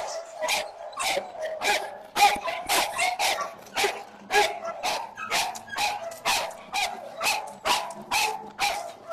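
A chained pit bull barking over and over in quick, even barks, about three a second, as it lunges at a man in front of it.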